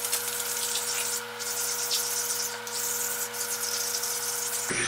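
Abrasive stone being rubbed back and forth over the cast-iron table of a Bridgeport milling machine, a repeated gritty scraping that stones down high spots and burrs left by dings on the table. A steady low hum runs underneath.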